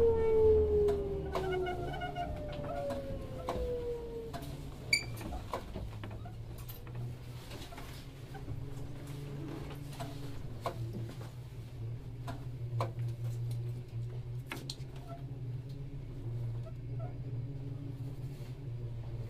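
A Sotetsu 7000 series train's Hitachi GTO-VVVF inverter and traction motors winding down in pitch as the train brakes, with the falling whine ending about four seconds in. A steady low hum with scattered clicks and knocks follows.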